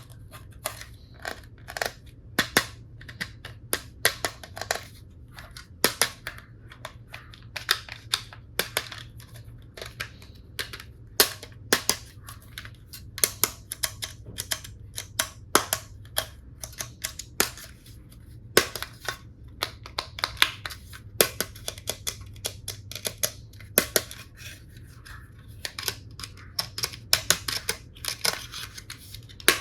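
Hard plastic toy tool pieces clicking and clacking sharply and irregularly as they are handled, often several times a second, with a soft rustle between the clicks in the later part.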